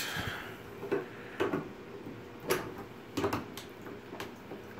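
Several sharp plastic clicks and knocks, irregularly spaced, as a garden-hose spray nozzle and its fittings are handled and set against a bathtub.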